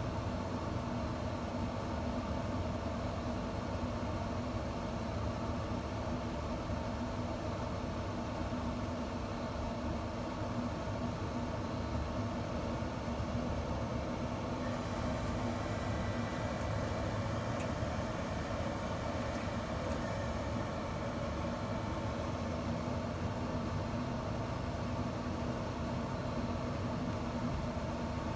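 Camp Chef pellet smoker running, its combustion fan making a steady hum with a few constant tones. A faint higher whine joins about halfway through.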